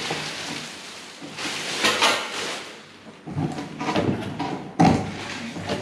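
Pedestal fan parts and their packaging being handled and set down: bursts of rustling and scraping, with a sharp knock about five seconds in.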